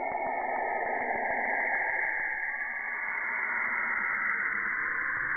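Saturn's radio emissions recorded by the Cassini spacecraft and converted into sound: a steady static-like hiss with a brighter, higher hissing band over a lower rush.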